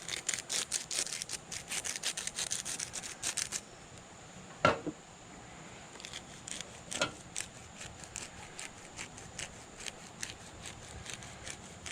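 Hands seasoning and rubbing the second side of a raw steak: a quick run of clicks and rubbing for about three and a half seconds, one louder knock about a second later, then scattered lighter clicks.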